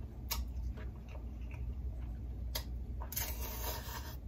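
Eating and handling noises at a seafood boil: a couple of sharp clicks, then a short crackling rustle about three seconds in, over a low steady hum.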